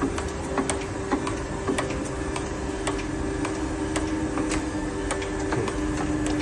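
KENT surface grinder running a cut on automatic feed: a steady machine hum with sharp ticks, roughly two a second.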